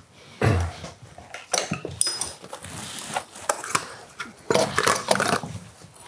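Hand tools and small metal parts clinking and rattling as the carburetor is unbolted from a V8 engine, with one ringing metallic clink about two seconds in.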